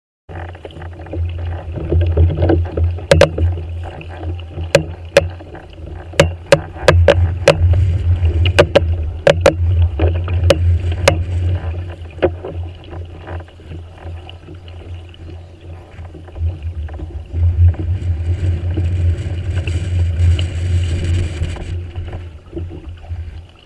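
Low rumble and water noise aboard a pedal-drive kayak under way, with a run of sharp clicks through the first half and a brief hiss swelling near the end.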